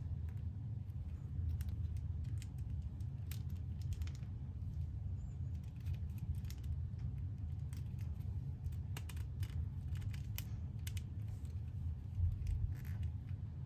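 Plastic action figure being handled and posed: scattered small clicks and taps from its joints and parts at irregular times, over a steady low hum.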